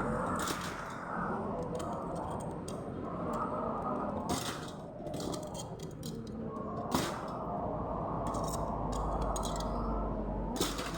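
Scissors snipping during unboxing: a few separate sharp cuts a few seconds apart over a steady background noise.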